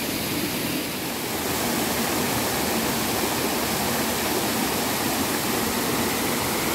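Steady rushing of a small jungle waterfall and the water cascading over rocks below it.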